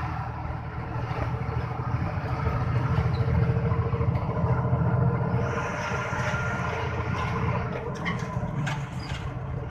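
Steady engine and road rumble of a vehicle cruising along a highway, growing a little louder midway and then easing back.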